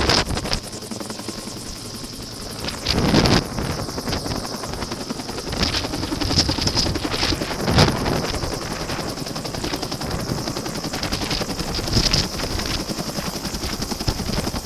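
Two-bladed helicopter hovering low overhead, its rotor beating steadily. Loud rushes of rotor wash hit the microphone a few times.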